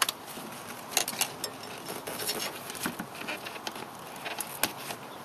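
Nylon cable ties clicking and rustling as they are threaded and pulled through their locks around a rubber air intake hose. The clicks come at an irregular pace, a few of them sharper than the rest.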